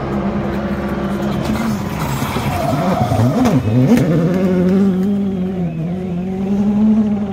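Rally car engine passing close: the revs dip and swoop sharply as it brakes and changes down into a gravel corner about three to four seconds in, loose gravel spraying from the tyres, then it holds a steady high note as it accelerates away uphill.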